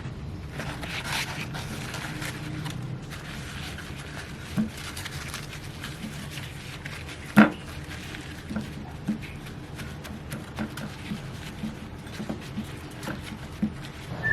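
Quiet handling sounds: light rustling for the first few seconds, then scattered soft taps, with one sharp knock about seven seconds in.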